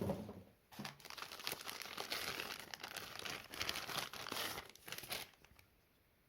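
Packaging crinkling and rustling as it is handled, for about four seconds, then stopping.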